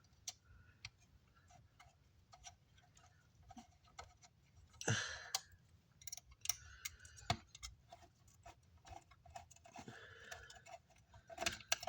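Scattered light clicks and taps of small metal parts and tools being handled while a car amplifier's front panel is taken off, with a few sharper knocks about five, seven and eleven seconds in.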